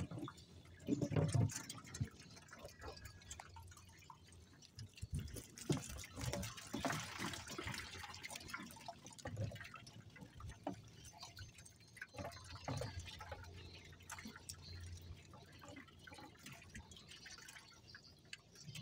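Water dripping and splashing irregularly from a fish trap being lifted and emptied, with scattered small knocks and rustles; a louder splash and knock comes about a second in.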